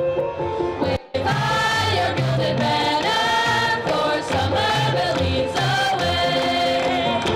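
A high-school chorus singing the school song in held, sustained notes. The sound drops out briefly about a second in.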